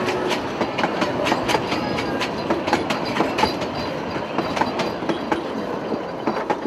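Open-sided narrow-gauge passenger carriages rolling past, their wheels clicking and clattering over the rail joints. The sound eases off near the end as the last carriage goes by.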